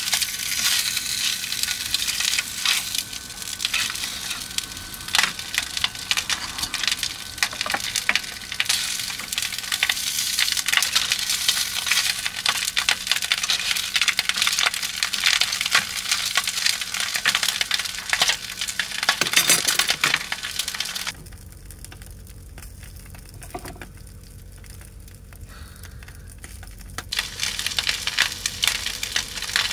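Mackerel fillets sizzling and crackling in a frying pan over a gas flame, a dense stream of small pops and spits. About two-thirds through the sizzling drops away for several seconds, leaving only a low hum, then comes back.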